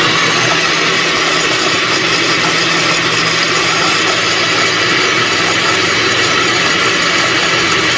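Countertop blender motor running steadily at high speed, loud and even, as a thin stream of oil is drizzled in to emulsify garlic and milk into a thick garlic sauce.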